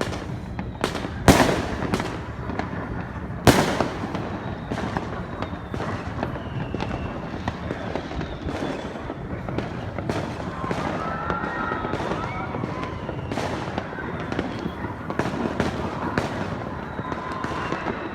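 Fireworks exploding: two loud, sharp bangs in the first few seconds, then a steady crackle of many smaller, more distant bursts over a continuous rumble.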